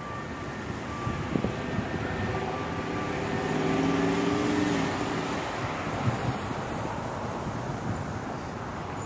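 City background rumble with a passing motor vehicle or plane, its engine noise swelling to a peak about four seconds in and then fading.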